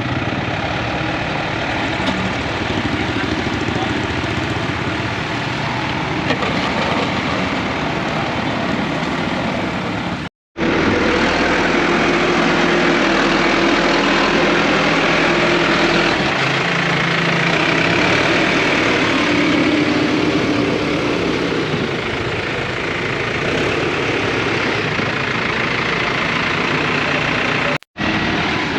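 Heavy vehicle engine running steadily under a dense wash of street noise. The sound drops out completely for a moment twice, at cuts in the recording.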